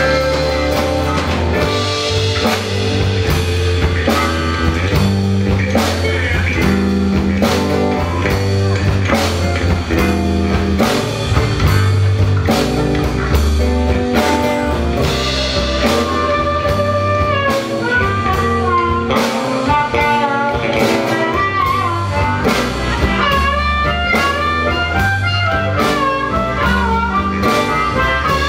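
Live blues band playing a slow blues instrumental passage on electric lead guitar, harmonica, acoustic guitar, electric bass and drum kit. Steady drum strokes and bass run throughout. A lead line bending up and down in pitch comes forward in the second half.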